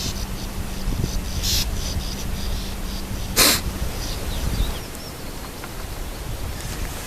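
Outdoor nature sound with low wind rumble on the microphone and a steady low hum for the first half. A loud short rushing burst of noise comes about halfway, after a fainter one a second and a half in. Faint thin bird calls follow.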